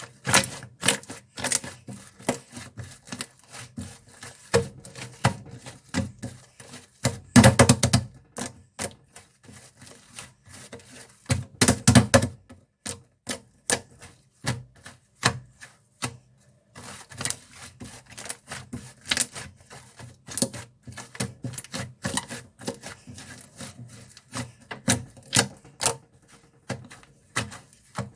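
Slime being squeezed, poked and folded by hand, making a rapid, uneven run of sharp clicks and little air-pocket pops, with two denser, louder bursts, about a quarter and almost half way through.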